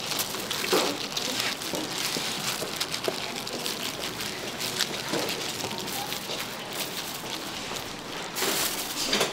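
Food sizzling on a hot pan, a steady crackling hiss, with faint voices behind it.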